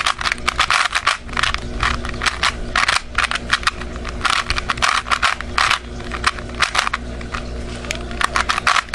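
Plastic 3x3 speedcube being turned quickly, a rapid run of clicking and clacking as its layers snap round, over a steady low hum.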